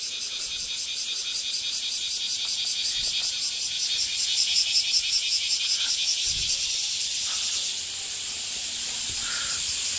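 Cicadas buzzing in rapid even pulses, about four or five a second, which give way about seven seconds in to a steady high hiss.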